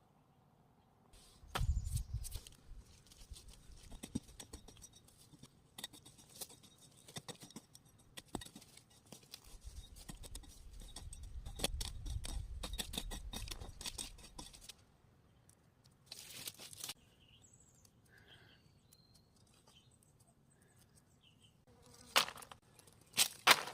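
Digging in hillside soil for wild Bletilla tubers: many short scraping and crunching strokes with rustling, and low rumbling stretches as the ground is worked. It goes quiet for a while, then a few louder scrapes come near the end.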